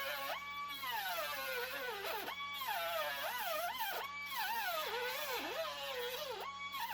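Angle grinder with a cutoff wheel cutting sheet steel. The motor's whine sags and wavers in pitch as the wheel bites into the metal, then climbs back to its free-running top pitch, about every two seconds.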